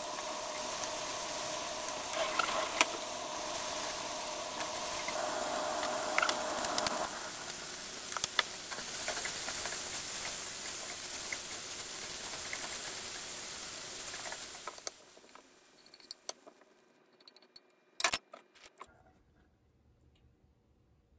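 Frying pan sizzling and hissing as nanohana (canola blossoms), bacon and cherry tomatoes are stir-fried with a splash of sake, with chopsticks tapping the pan now and then. The sizzling stops about 15 seconds in, followed by a few light clicks.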